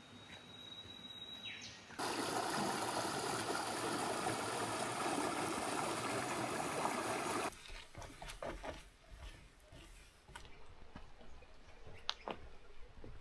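Steady rush of running water from a forest stream or waterfall, which starts suddenly about two seconds in and cuts off about five seconds later. A thin high tone comes in the first second and a half, and a few faint clicks follow the rush.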